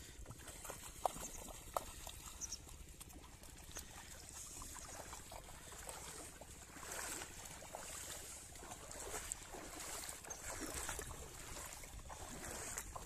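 Faint splashing of a small child's feet wading and running through shallow river water, with a few small clicks in the first two seconds.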